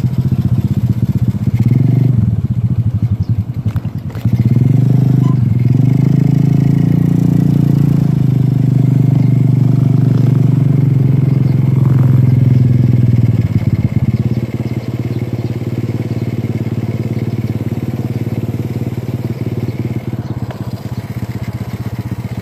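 Small motorcycle engine heard from on the bike while riding: it picks up speed in the first few seconds, runs steadily at higher revs, then eases off about fourteen seconds in and runs on more quietly.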